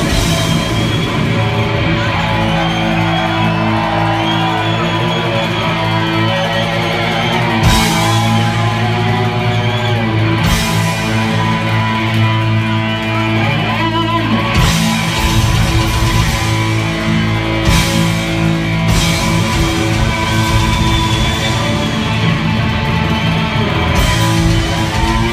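Live hard rock band playing loud, with distorted electric guitars and drums.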